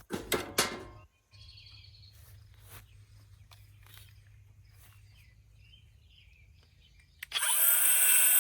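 A short clatter of knocks at the start, then a quiet stretch with faint bird chirps, and about seven seconds in a power tool starts up, its motor whining up to speed, and runs loudly.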